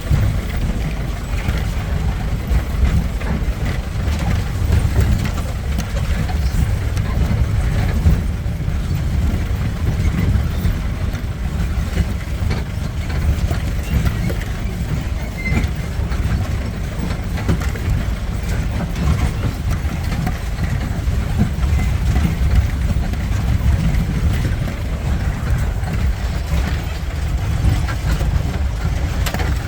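Mahindra jeep's engine running steadily as it drives over a rough off-road track, with the body and fittings rattling and knocking all the way.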